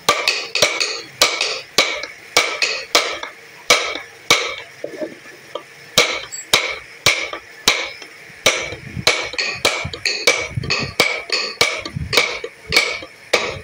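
Wooden mallet striking a steel carving chisel, cutting a relief pattern into a wooden box: a quick, uneven run of sharp taps, about two or three a second, each with a brief ring.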